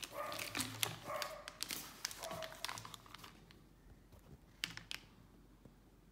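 Plastic parts bags crinkling and rustling for about the first three seconds, with a few brief squeaky tones mixed in, then a couple of sharp clicks near the end.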